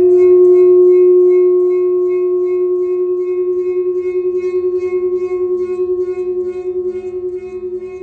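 A large round metal Chladni plate ringing with one sustained, steady tone and fainter higher overtones, wobbling quickly in loudness. It is loudest in the first second or so, then eases slightly. The plate is resonating in a single mode, the vibration that drives its sand into nodal lines.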